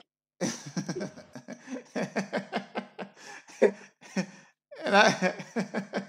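People's voices talking and laughing, quieter than the narration around it.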